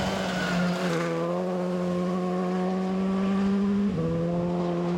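Škoda Fabia rally car's engine pulling hard out of a gravel corner, with a rough noisy start, then a steady high engine note that climbs slightly and drops sharply about four seconds in at an upshift before pulling on again.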